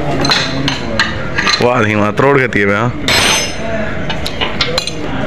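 Repeated sharp metal knocks and clinks from tools working at a truck cargo door's locking latch to break a stuck plastic security seal.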